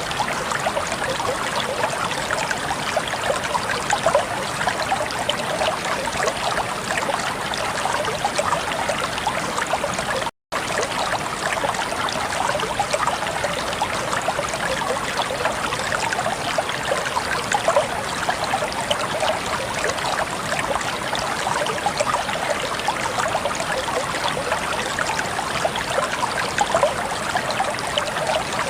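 Flowing water babbling and splashing steadily, with one momentary cut to silence about ten seconds in.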